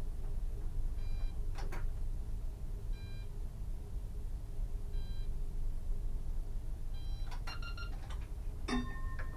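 Driver's cab of a stationary Solaris Tramino S105p tram: the onboard equipment hums steadily while a short electronic beep from the cab sounds about every two seconds. A few clicks and a quick run of beeps follow near the end, then a steady two-note tone starts just before the end.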